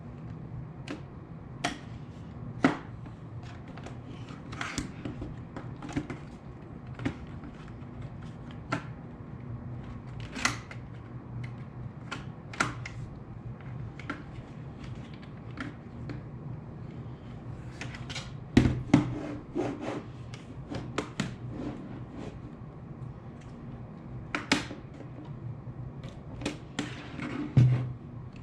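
Irregular small clicks, taps and knocks of an HP 14 laptop's plastic case and parts being handled, with a cluster of louder knocks about two-thirds of the way through and another near the end. A low steady hum runs underneath.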